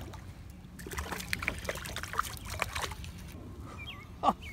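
A small bass splashing at the water's surface as it is reeled in, a quick run of splashes lasting a couple of seconds.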